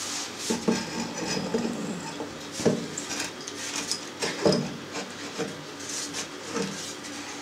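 A wooden board of a cheese press rubbing and scraping against the press's stainless-steel guide posts as it is fitted down over them, with short squeaks and a couple of sharp knocks.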